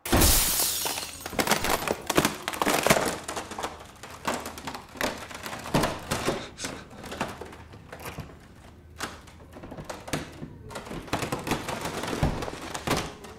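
A sudden, loud burst of heavy thuds, bangs and cracking, then many irregular knocks and crashes that keep coming throughout.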